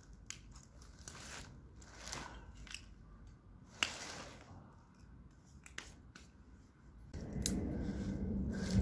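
Scattered crunches, clicks and rustles of rubble and rubbish shifting as someone steps and rummages through debris in an abandoned garage. About seven seconds in, a louder low rumble takes over.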